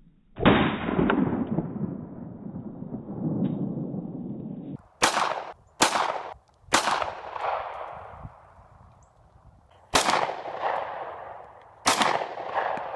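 Gunshots fired outdoors, each ringing out with a fading echo. A loud, muffled bang comes first, about half a second in, with a long tail. Then five sharp shots follow: three in quick succession about a second apart, then two more a couple of seconds apart.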